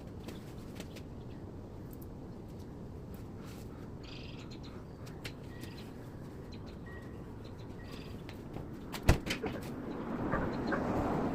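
Faint bird chirps over a steady low background hum. About nine seconds in there is a sharp click, the loudest sound, followed by a few lighter clicks and then a rustling, scraping noise near the end.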